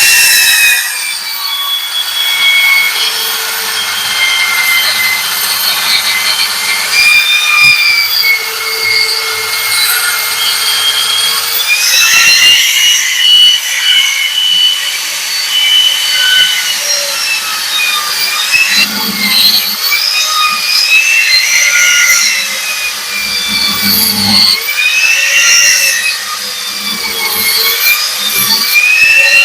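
Power tool with a diamond raking disc cutting old mortar out of brick joints, its whine rising and falling in pitch as the disc bites into the joints and frees up.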